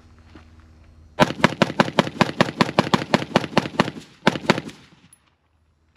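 A Diamondback DB15 AR-15 rifle in 5.56 fired in a fast string of about twenty shots, roughly six a second, starting a little over a second in. After a short break come two more shots.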